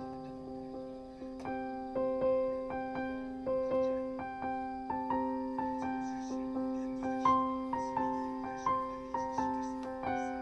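Background music: a gentle keyboard melody of soft piano-like notes, about two a second, each fading after it is struck, over a steady held low tone.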